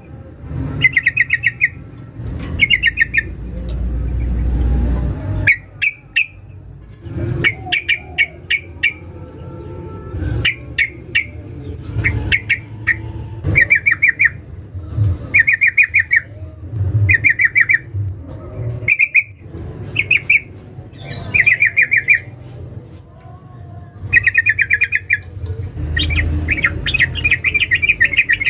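Yellow-vented bulbul (trucukan) giving short, rapid chattering phrases, repeated every second or two; this is the female's call to a male. A steady low rumble lies underneath.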